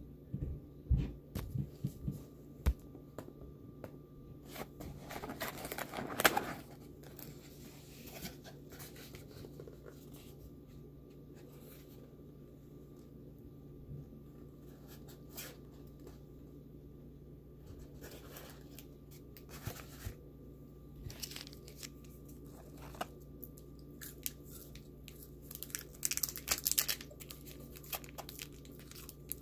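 McDonald's paper food packaging being handled and opened: knocks and taps at first, then bursts of paper crinkling and tearing with quiet pauses between. A faint steady hum runs underneath.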